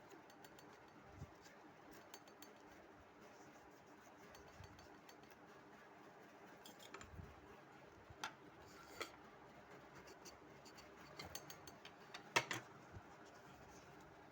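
Paper being handled and folded: faint rustling with scattered sharp crinkles and taps, the loudest a cluster about twelve seconds in.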